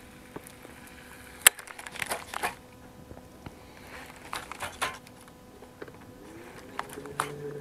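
Scattered light clicks and short rustles of fishing gear being handled on a boat deck, the sharpest click about one and a half seconds in. Under them runs a faint steady hum, and a low tone rises in pitch near the end.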